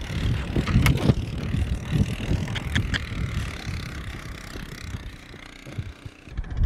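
An ATV towing a roping dummy runs ahead of a galloping horse, heard through rough wind rumble on a rider-worn camera's microphone. There are a few sharp clicks about a second in and near three seconds, and it grows quieter after about four seconds.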